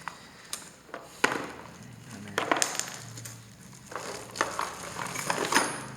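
Irregular plastic knocks and clicks with rustling as an impact drill kit is handled in its opened plastic carrying case, the sharpest knock about a second in.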